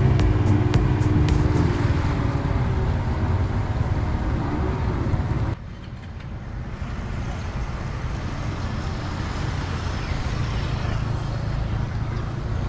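Speedboat engines running as boats pass close to the pier, a low rumble with a slowly shifting engine tone. About five and a half seconds in it cuts off abruptly, giving way to a quieter, steady outdoor background noise.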